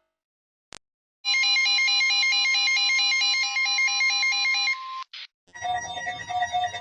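Electronic emergency-alert alarm tone, a processed 'sound variation' edit: after a second of silence and a faint click it starts abruptly, a loud synthetic tone rapidly alternating between two pitches, and stops just before 5 s. After a couple of short blips, a differently processed version begins near the end with falling, sweeping pitches layered over the tone.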